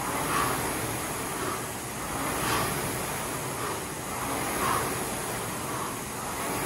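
Concept2 rowing machine's air-resistance flywheel whooshing under steady rowing, swelling with each drive stroke about once every two seconds.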